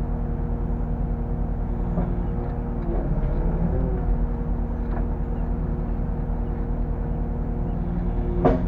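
Bobcat E85 excavator's diesel engine running steadily, with a few light knocks and a sharp click near the end.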